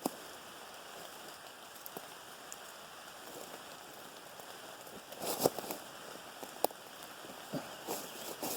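Steady rain falling in woodland, a constant hiss. A few sharp clicks and knocks come through it about halfway through and again near the end.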